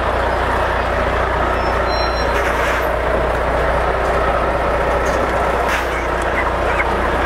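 Diesel engine of a Volvo lorry running steadily as it moves at walking pace, a constant low rumble with road and mechanical noise over it.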